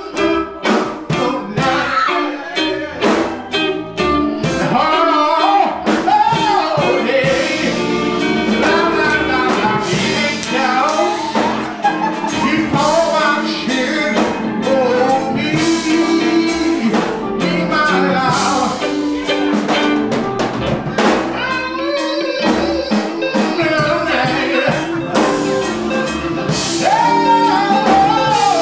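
A man singing a gospel song through a microphone, with a live band of drum kit and other instruments behind him; the drum hits are densest in the first few seconds.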